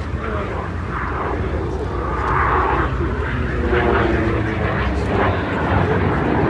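Airplane engine droning as the plane flies past overhead, growing louder about two seconds in.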